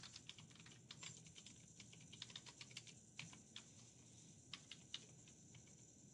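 Faint computer keyboard typing: a quick run of key clicks over the first half, then a few scattered keystrokes.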